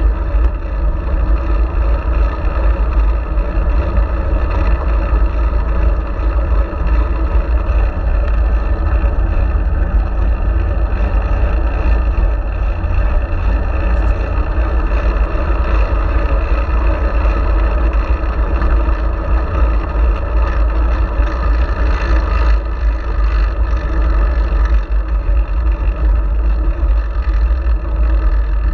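Steady wind and road rumble on a GoPro mounted on a moving fixed-gear bicycle, a deep, constant noise with no pauses.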